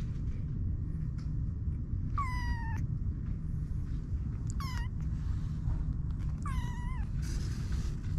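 Kittens about 25 days old mewing: three short, high-pitched mews about two seconds apart, each falling slightly in pitch, over a steady low rumble.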